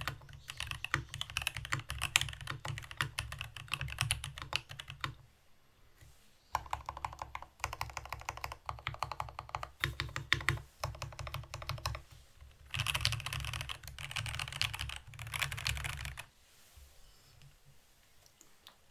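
Fast typing on a mechanical keyboard with stock NK Silk Black linear switches in a brass plate under GMK keycaps: rapid clacking keystrokes in runs with short pauses, loudest near the end. The typing stops about three seconds before the end.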